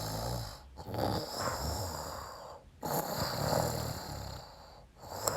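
Snoring: a slow, rattling snore drawn in and let out, repeating about every two seconds.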